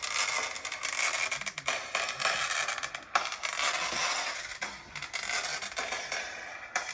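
Fireworks crackling: a dense run of small pops and crackles, with a sharper crack about three seconds in.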